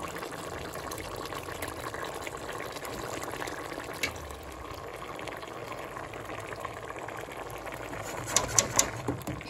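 Pot of beef stew simmering with a steady bubbling, and three sharp clicks near the end.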